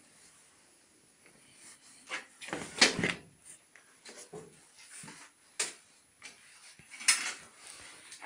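Irregular rustling and knocking as a drowsy puppy is handled on a crinkly disposable sheet. The loudest knocks come about three seconds in, with a few more scattered through the rest.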